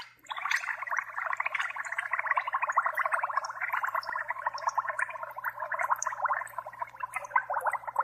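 Gas escaping from a vintage Ronson lighter's fuel valve under water, pressed open with a screwdriver to vent the tank, making a dense, rapid bubbling. The bubbling stops abruptly near the end.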